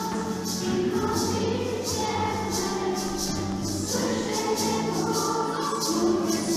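Music: a song sung by a choir over an instrumental backing with a steady beat.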